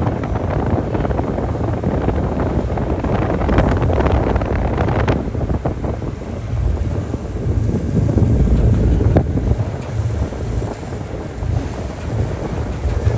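Wind buffeting the microphone on the deck of a large car ferry under way, over the rush of waves in a 2-to-3-foot sea.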